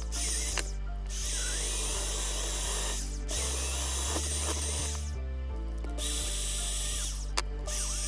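A power drill or similar rotary tool running over background music, cutting out briefly a few times before starting again.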